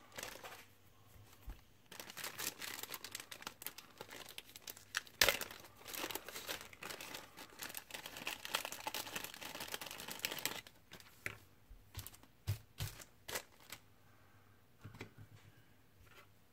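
Small clear plastic bag crinkling and rustling as it is handled, for about eight seconds, with one sharp crackle partway through. It is followed by a string of separate light clicks and taps.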